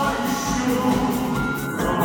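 Music with singing voices: a song sung over an accompaniment, held notes and a steady low beat.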